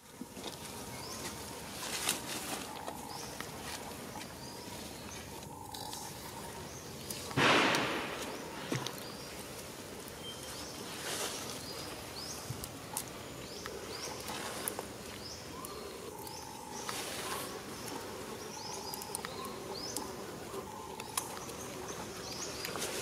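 Outdoor forest ambience with birds chirping, short high upward-sweeping calls repeating throughout. A brief loud noisy burst comes about seven and a half seconds in.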